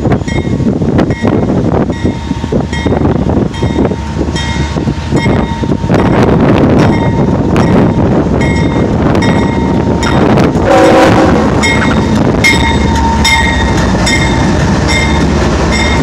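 CSX ES44DC and AC44CW diesel locomotives approaching and passing close by, with a heavy engine rumble that grows louder about six seconds in. A bell rings steadily about twice a second, and a short horn blast sounds about eleven seconds in.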